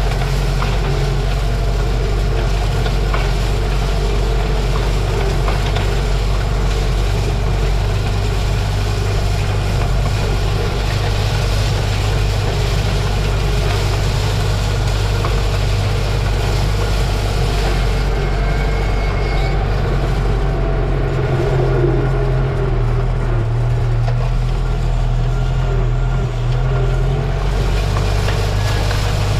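Tractor engine running steadily, pulling hay equipment, heard from inside the cab. Its tone shifts slightly and grows duller for several seconds about two-thirds of the way through.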